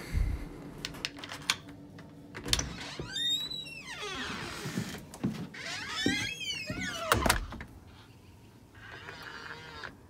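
Yale Assure smart lock's electric motor whirring in two short runs, rising then falling in pitch, as it automatically drives the deadbolt once the door is shut, with door knocks and latch clunks around it and a thud at the end of the second run.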